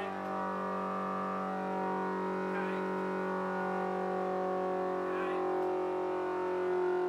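Cosworth BDG 2-litre four-cylinder, twin-cam race engine with Lucas mechanical fuel injection, running on a dynamometer test bed and held at a steady speed.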